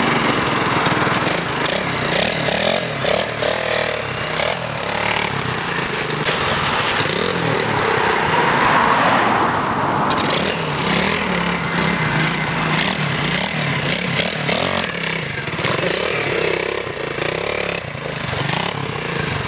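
Pit bike's 125cc single-cylinder four-stroke engine with a makeshift exhaust, revving up and down as the bike is ridden, its pitch rising and falling with the throttle.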